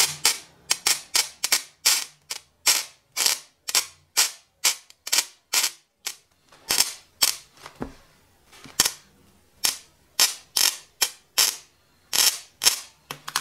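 Battery-powered spot welder firing again and again into a thin nickel strip, a sharp crack with each discharge, two or three a second with a short lull about eight seconds in. On its highest power setting each pulse arcs and burns through the thin strip with sparks.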